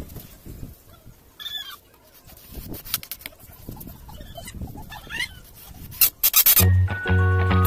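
Light knocks and rubbing from handling the wooden shelves and white metal frame of a plant rack, with a few short wavering high calls in the background. A quick run of sharp clicks comes about six seconds in, and loud background music starts just after.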